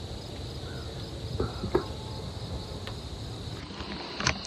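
Crickets and other insects trilling steadily in a field, with a few short clicks, the sharpest near the end.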